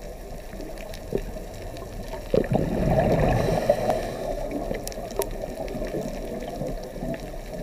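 Water gurgling and bubbling, swelling louder a little past the middle, with a few small clicks.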